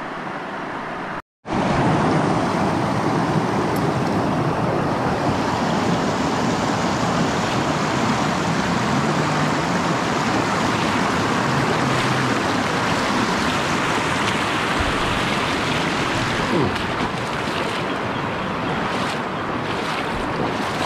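Rushing whitewater of small river rapids, heard close up as a steady loud wash. The sound drops out for a moment about a second in.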